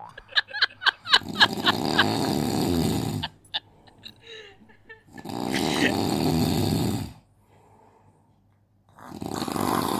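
A person snoring: three long snores of about two seconds each, roughly four seconds apart, with a quick run of sharp clicks in the first two seconds.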